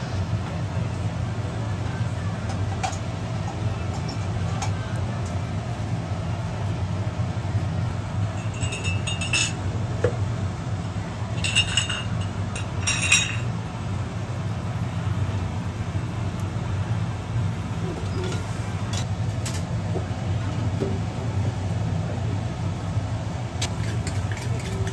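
Metal cooking tools clinking several times against a cast-iron takoyaki pan as batter and toppings go in, over a steady low hum in the shop.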